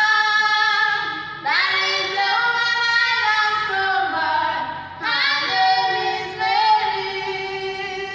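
Two young women singing a song about Mary together, in long held phrases, with new phrases beginning about a second and a half and five seconds in.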